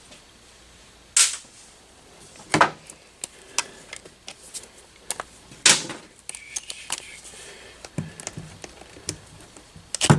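Metal tools and engine parts clinking and clanking while an engine is being taken apart: three louder clanks, about a second, two and a half and five and a half seconds in, with lighter ticks and clicks between.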